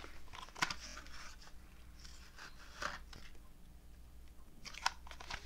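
Hands handling a small item close to the microphone: soft rustling with a few sharp clicks scattered through, the loudest about three seconds in and near the end.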